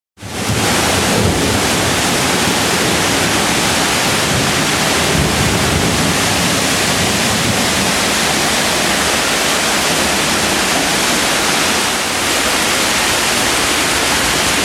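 Storm noise: a loud, steady rushing that starts abruptly and holds, with a slight dip about twelve seconds in.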